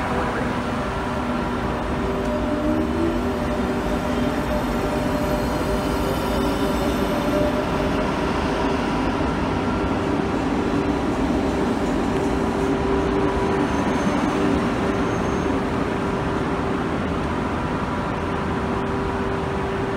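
Renfe Cercanías electric multiple unit pulling out and rolling past: steady electrical whine tones with a pitch that rises briefly a few seconds in as it gathers speed, over a continuous rumble of wheels on rail.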